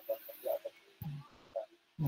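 A man's voice, faint and broken: a few quiet murmured syllables between sentences.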